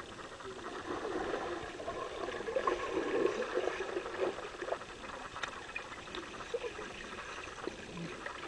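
Water splashing and trickling, swelling a little about three seconds in.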